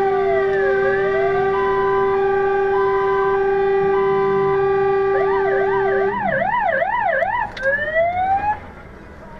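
Fire engine siren sounding: a slow rising-and-falling wail over a steady held tone, switching about five seconds in to a fast yelp of about three sweeps a second, then two short rising sweeps before it cuts off near the end.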